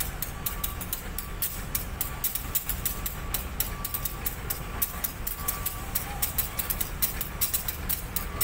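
Passenger train hauled by a CC201 diesel-electric locomotive moving slowly while shunting: a steady low engine rumble under rapid, irregular clicking and knocking of the wheels on the track.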